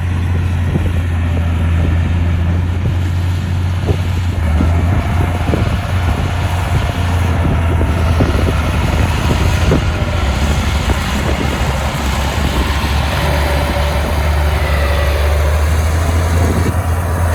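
Heavy diesel earthmoving machine's engine running steadily, with a strong low hum and scattered short clanks.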